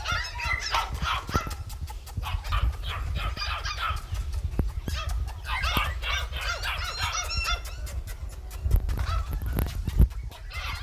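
German Shepherd puppies yelping and whining in high-pitched bursts, in several clusters, over a low rumble.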